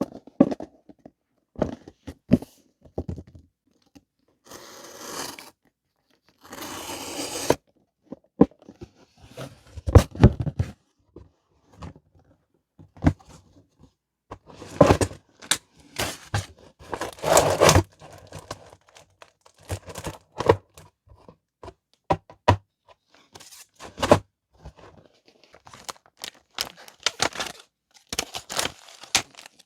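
Paper stationery and plastic packaging being handled close up: crinkling, rustling and light taps. There are two longer rustling stretches about five and seven seconds in, and a busier run of handling in the middle.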